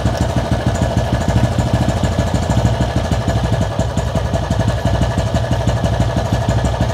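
Motorcycle engine idling steadily, a rapid, even run of firing pulses.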